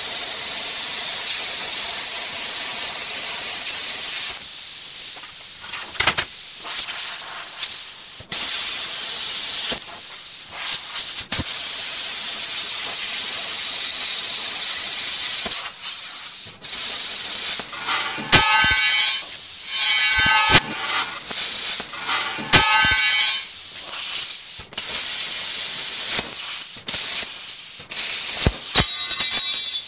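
Plasma cutter torch hissing loudly as its arc cuts through the steel of an old circular saw blade, in long stretches with short breaks where the trigger is let off. Several times in the second half a harsh buzzing tone joins the hiss.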